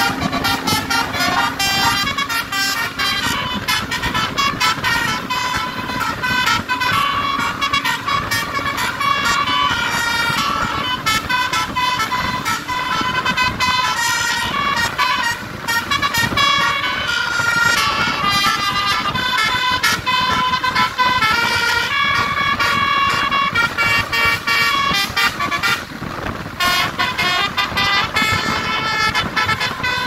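Tour bus's basuri 'telolet' multi-tone musical horn playing a fast, continuous melody of rapidly changing high notes, with road noise underneath.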